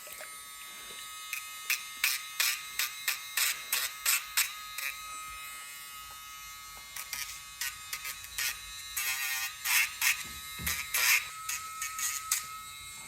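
Electric dog nail grinder running with a steady high hum, grinding against the dog's nails in many short strokes, then in longer passes from about seven seconds in.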